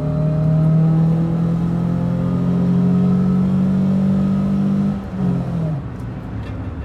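Toyota ist's four-cylinder engine pulling hard under full acceleration, its note rising steadily. About five seconds in, the revs drop away as the throttle lifts or the gear changes.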